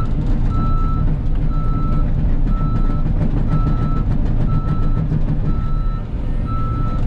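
Cat 313 excavator's diesel engine running under load with its travel alarm beeping, one even beep about every second.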